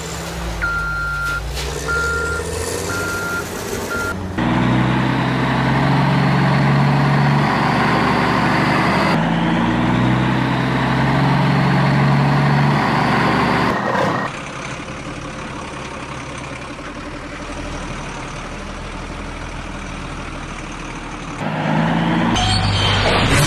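Dubbed-in heavy truck sound effects: a reversing beeper sounds four times early on, then a truck engine runs with a low steady hum. The engine sound is spliced from separate clips, changing abruptly every few seconds, and is quieter for a stretch in the second half.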